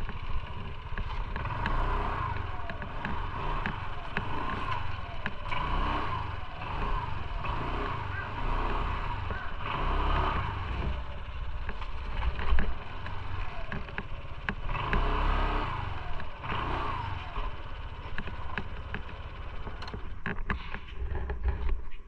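Motorcycle running on the road with uneven wind rumble on the microphone and scattered small knocks and rattles.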